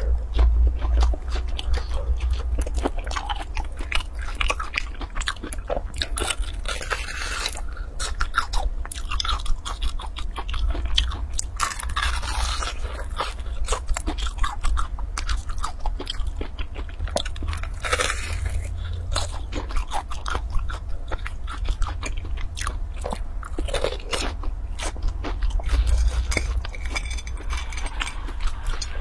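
Close-miked eating of crispy golden-brown fried balls: repeated sharp crunches of the crust as it is bitten, and chewing. A steady low hum sits underneath.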